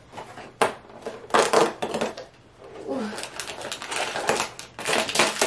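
Cardboard advent calendar door being pried open and the small plastic bag inside pulled out: irregular bursts of crinkling and scraping, busiest in the second half.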